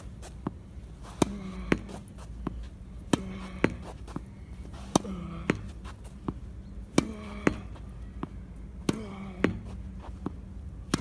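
Tennis ball rallied against a practice wall: sharp pops of racket strings on the ball and the ball hitting the wall, in pairs about half a second apart, repeating roughly every two seconds. A short falling vocal sound from the player comes with most strokes.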